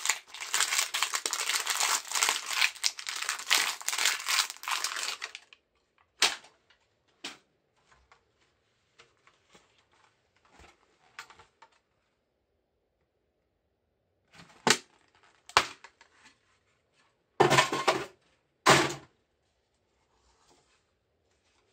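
Plastic parts of a disassembled Cherry computer keyboard handled with gloved hands. About five seconds of dense crinkling and crackling give way to scattered light plastic clicks and knocks, with two short loud rustling bursts near the end.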